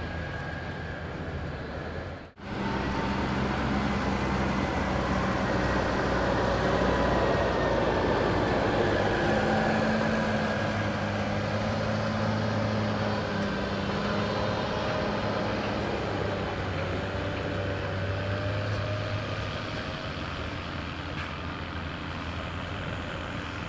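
Diesel tractor engines running steadily, the sound cutting out sharply for a moment about two seconds in.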